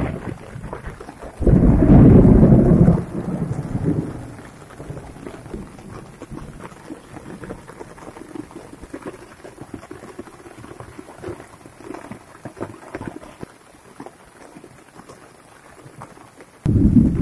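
Steady rain falling on garden plants and wet ground, a constant hiss dotted with the ticks of single drops. Twice a loud low rumble breaks in: one about a second and a half in that fades out over two seconds, and a shorter one at the very end.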